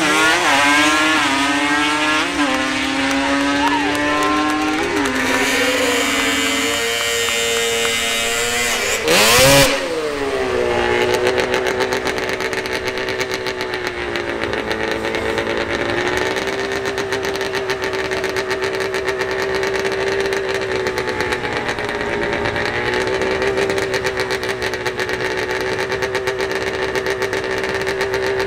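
Drag-racing ATV engines. A quad launches and accelerates away, its pitch climbing and dropping back with each upshift. After a short loud blast a little past nine seconds, another quad's engine is held at steady high revs.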